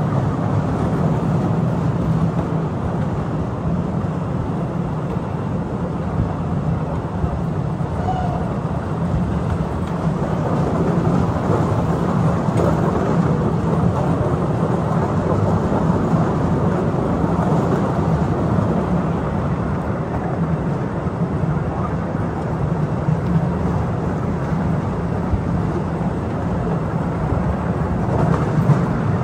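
Postojna Cave train running along its track: a steady, low rumble of wheels on rails.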